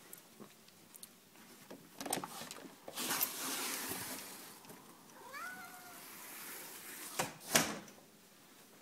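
Clicks and a rushing noise as a sliding door is opened, then a black-and-white domestic cat meows once, a short call that rises and then falls. Two sharp knocks follow near the end, the second one louder.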